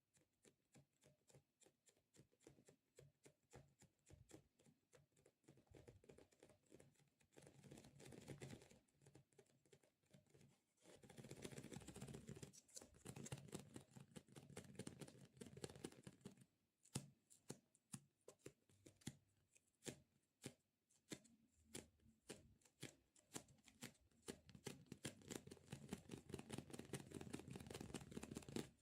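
Quiet, close-miked ASMR handling sounds: a steady run of sharp, crackly clicks, several a second, thickening into denser crackling in the middle and again near the end.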